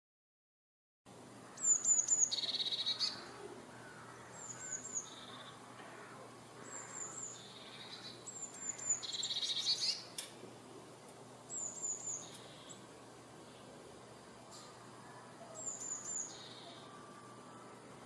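Blue tit singing: about six repeated phrases, each two or three high thin notes dropping into a lower trill, every two to three seconds, starting about a second in.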